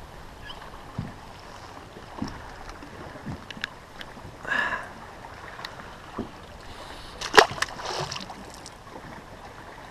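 Quiet background on a small fishing boat with scattered light knocks and clicks. A brief, higher-pitched sound comes about four and a half seconds in, and a sharp knock, the loudest sound, about seven seconds in.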